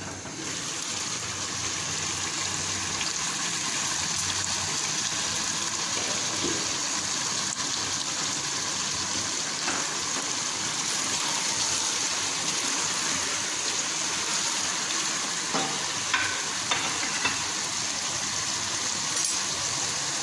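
Chicken pieces and sliced onions sizzling steadily in oil in a non-stick pot. The sizzle grows louder as the glass lid comes off at the start. A few short knocks come in the second half as a silicone spatula turns the pieces against the pot.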